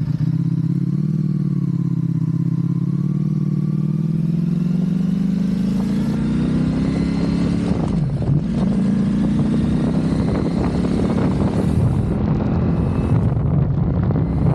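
Motorcycle engine running under throttle, its pitch climbing slowly, dipping sharply about eight seconds in, then climbing again. Wind on the microphone grows rougher near the end.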